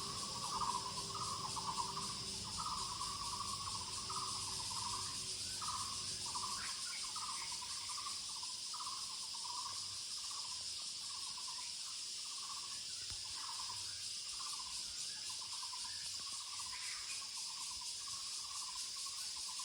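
Muller's barbet (Taiwan barbet) calling: a long run of short repeated notes, about one and a half a second. A steady high insect drone runs under it.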